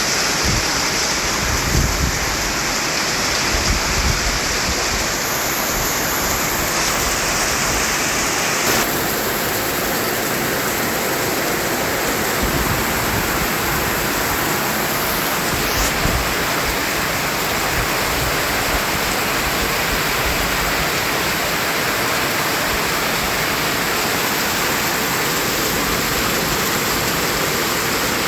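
Continuous white noise: a steady, even rushing hiss across the whole range. Its upper tone shifts slightly a few times, with a faint low rumbling flutter underneath.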